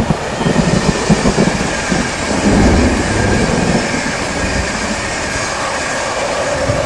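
Electric intercity passenger train passing at speed: a loud, steady rumble of coaches on the rails, with irregular thuds in the first couple of seconds and a tone that falls slightly near the end as the rear passes.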